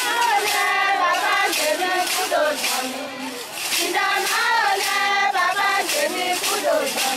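A group of women singing together in unison, with a steady beat of sharp strikes on hand-held bowls keeping time.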